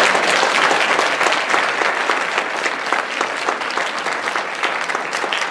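Audience applause: many people clapping at once, holding steady.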